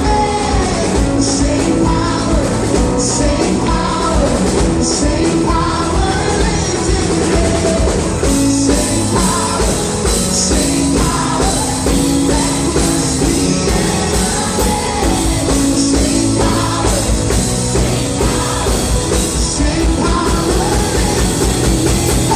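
Worship band playing loud music with a singing voice over a steady drum beat.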